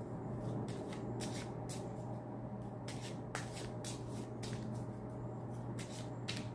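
A deck of tarot cards being shuffled by hand: a run of short, irregular flicks and slaps, over a steady low hum.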